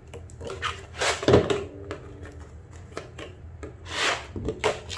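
A spatula scraping under card gift tags stuck to an adhesive cutting mat, with the mat flexing and the card peeling off its sticky surface. There are a few rubbing strokes, the loudest about a second in and again around four seconds in.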